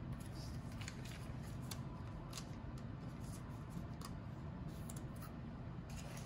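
Trading card being slid into a rigid plastic top loader: light, dry plastic scraping and rustling with scattered small clicks.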